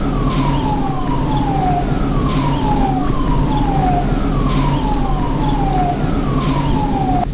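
Siren sound: a tone that glides steeply down and starts again about once a second, over a steady low hum.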